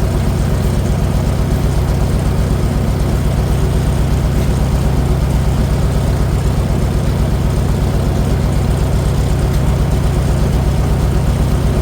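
Farmall 400 tractor's four-cylinder engine idling steadily, an even, fast low pulse with no change in speed.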